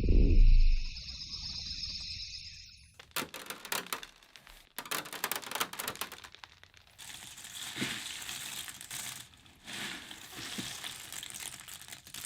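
Foley sound effects: a low rumble at the start and a steady high hiss for the first few seconds, then irregular crackling, crumpling and clicking sounds.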